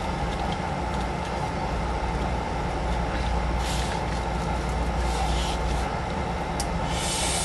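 Steady low rumble and hiss of background noise, with one sharp click and a few short rustles of plastic puzzle-cube pieces being handled.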